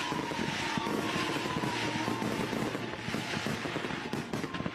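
Fireworks display: dense crackling and popping from bursting shells, with a whistle sliding slowly down in pitch that fades out about a second in.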